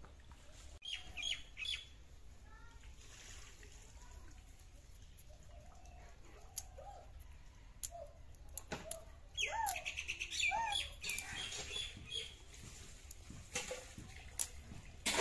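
Birds chirping on and off, in short rising and falling calls. Through the second half come sharp scratchy scrapes of a knife blade scraping the scales off a small fish.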